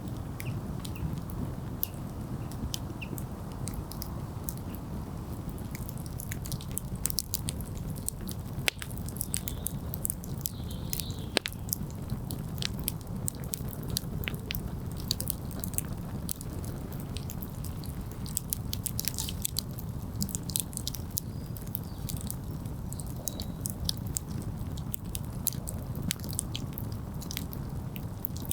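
Wood campfire burning, with frequent irregular sharp crackles and pops from the wood over a steady low rush.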